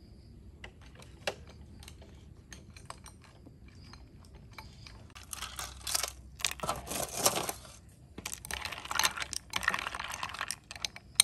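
Metal spoon stirring ice cubes and fruit pieces in a ceramic bowl: scattered light clicks at first, then from about five seconds in two spells of dense clinking and rattling of ice against the bowl.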